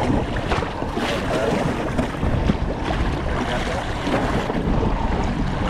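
Wind on the microphone and sea noise aboard a small fishing boat offshore, a steady rushing with heavy low rumble.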